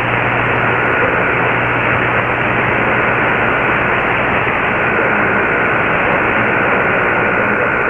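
Shortwave static and hiss from an Icom IC-R8600 receiver tuned to a weak AM broadcast on 15140 kHz, the signal buried in the noise. A steady faint high whistle runs through the hiss.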